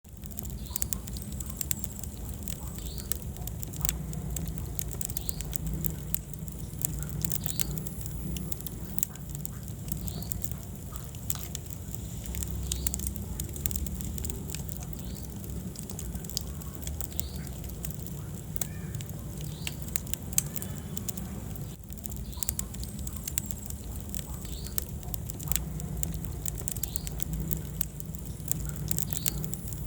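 Wood fire burning in a fireplace, crackling with frequent sharp pops and snaps over a low, steady rumble of the flames.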